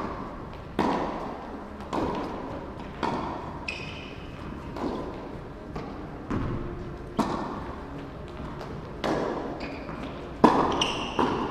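Tennis balls struck by rackets and bouncing on the court in a rally, sharp pops about every second or two, each echoing in the large indoor hall; the loudest comes near the end.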